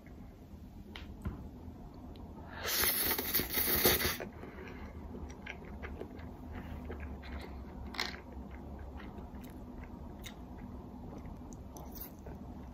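Close-up eating sounds: a loud crunchy bite about two and a half seconds in lasting over a second, followed by quieter chewing with small scattered clicks.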